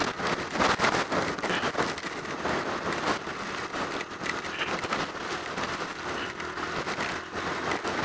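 Wind from a strong gust buffeting the microphone while a motorcycle is ridden: a steady rough rush with constant crackle and flutter.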